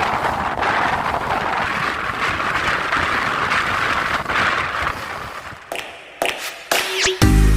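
Steady rushing noise of strong wind and choppy water, with wind buffeting the microphone. It fades out after about five seconds, a few sharp clicks follow, and music starts near the end.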